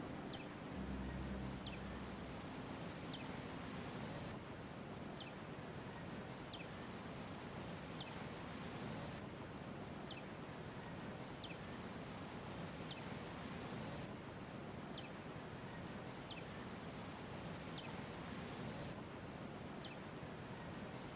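Outdoor ambience: a steady rushing background with a bird repeating a short, high, falling note about every one and a half seconds.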